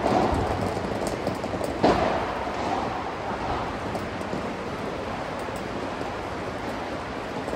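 Padel ball knocks: a few short sharp hits in the first two seconds, the loudest about two seconds in. Under them runs a steady hiss of background noise in the covered hall.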